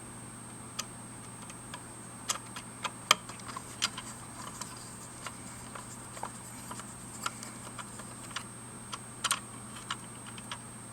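Small Phillips screwdriver clicking against a tiny screw and the plastic front plate of a Lomography Diana+ shutter as the screw is backed out: scattered light clicks at uneven intervals, a few a second at most.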